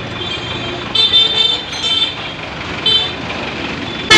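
Street traffic noise with vehicle horns giving several short honks, and one loud sharp knock right at the end.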